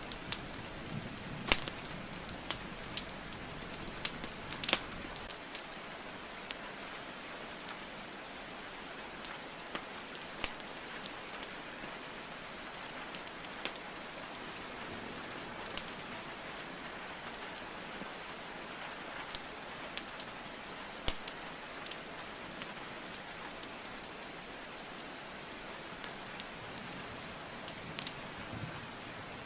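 Steady rain hiss with a crackling wood fire. Sharp pops and snaps of burning logs are loudest and most frequent in the first five seconds, then sparser.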